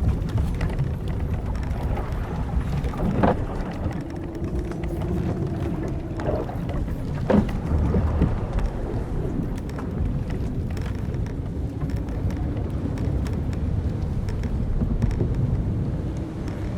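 Old wooden sailing ship's timbers and ropes creaking over a steady rumble of wind and sea. There are sharp creaks about three seconds in and again near seven and a half seconds, with one long drawn-out creak between them.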